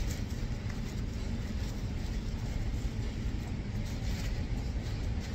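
Steady low rumble of background room noise, with faint brief crinkles of a paper sandwich wrapper being handled.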